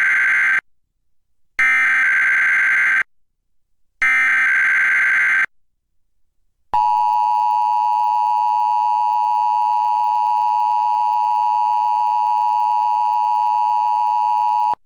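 Emergency Alert System header tones: the end of one and then two more harsh, warbling digital data bursts, each about a second and a half long with a second's gap between. A little over a second after the last burst comes the EAS attention signal, a steady two-tone chord held for about eight seconds that cuts off sharply near the end.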